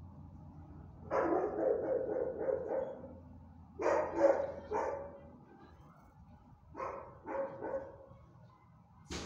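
Dogs barking in three bouts of several barks each: about a second in, around four seconds in, and near seven seconds in.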